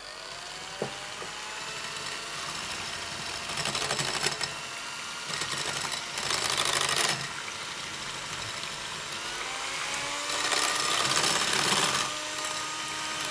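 Electric hand whisk whirring as its twin beaters whisk thin pancake batter smooth in a glass bowl. Its pitch rises as it gets up to speed at the start, and it gets louder and harsher three times.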